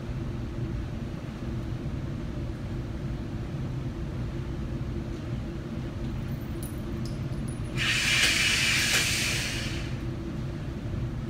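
Steady low rumble of an indoor shooting range's ventilation, with a loud hissing rush lasting about two seconds that starts about eight seconds in.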